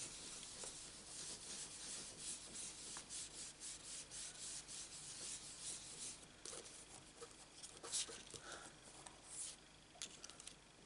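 A round ink blending brush rubbing in quick small circles on card stock, a soft continuous scratchy rubbing, as ink is buffed onto the paper. It grows fainter after about six seconds, with a few light taps.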